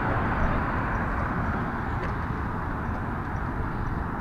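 Road traffic passing on a street, a steady wash of tyre and engine noise, with wind buffeting the microphone in a ragged low rumble.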